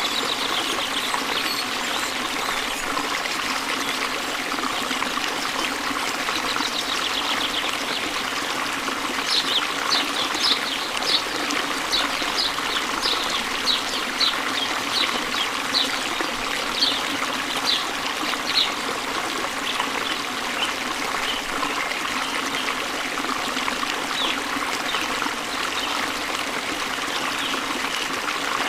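Water of a waterfall running steadily, an even rushing and trickling. For about ten seconds in the middle comes a run of short high-pitched chirps, about two a second.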